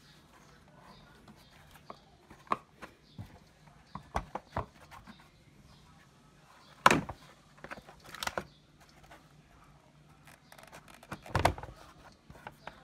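Hands handling and removing plastic engine-bay parts, the engine cover among them: scattered clicks and knocks, with two louder thumps about four seconds apart.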